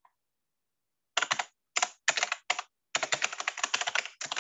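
Typing on a computer keyboard: a run of quick keystrokes in short clusters, starting about a second in.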